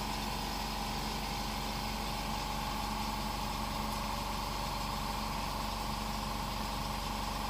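A steady machine hum, a higher whine over a low buzz, running unchanged throughout.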